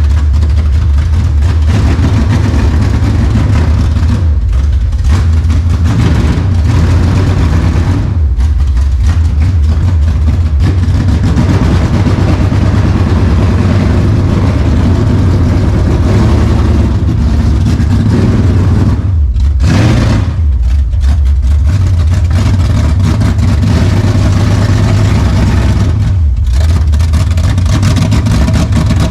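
Dodge Challenger's 440 V8 running loudly and steadily, fed with gasoline poured down the carburetor from a gas can. A few brief dips in its note come and go.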